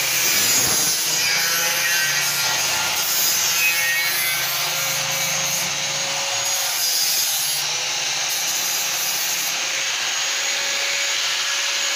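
Angle grinder running on the steel tube frame of a sliding gate: a steady grinding hiss over a constant motor whine.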